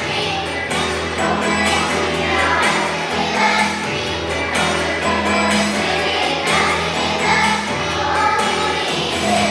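A group of voices singing a song together over an instrumental accompaniment with a steady bass line.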